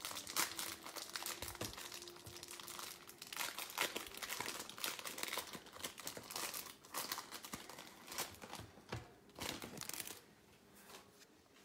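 Trading card pack wrappers crinkling and tearing as packs are opened and the cards handled, a dense irregular crackle that thins out and quietens near the end.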